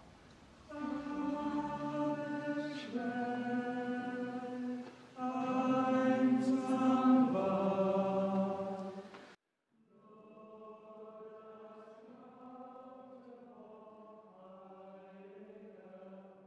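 Choir singing slowly in long held notes. The singing breaks off about nine seconds in, then carries on more softly.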